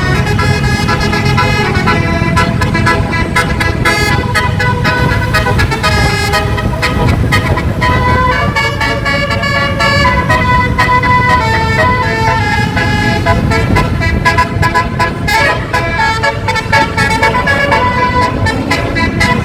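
Basuri 12-note bus horn with roof-mounted trumpets playing a continuous tune of held notes that step from pitch to pitch, over a steady low rumble.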